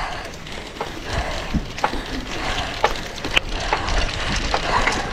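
Bicycle rolling over grass and dry leaves: scattered crackles and clicks from the tyres and the bike's rattling parts, over a low rumble of wind on the microphone.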